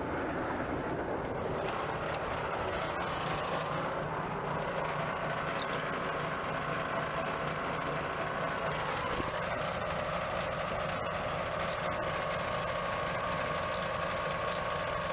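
A van driving along, with steady engine hum and road noise.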